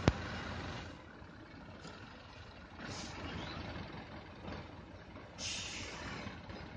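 Heavy truck's diesel engine running low and steady while manoeuvring slowly, with a short air hiss about three seconds in and a longer one near the end, typical of air brakes. A sharp knock right at the start is the loudest moment.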